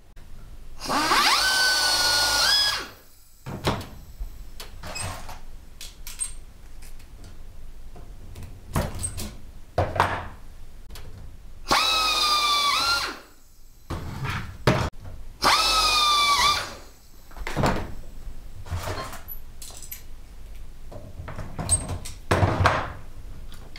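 A drill match-drilling holes through an aluminum canopy track into a nylon strip, run three times for one to two seconds each; each time its whine climbs in pitch as it spins up and drops as the run ends. Light clicks and short clatters of handling fall between the runs.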